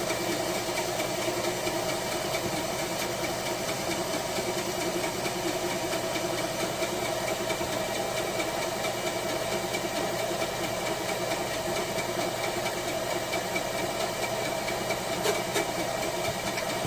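Wen band saw running steadily with a brand-new blade, an even motor hum and blade whir, the blade tracking well in its guides with very little movement. One faint knock about fifteen seconds in.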